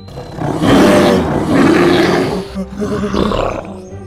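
Animated dimetrodon roaring: a long, rough roar followed by a shorter second one.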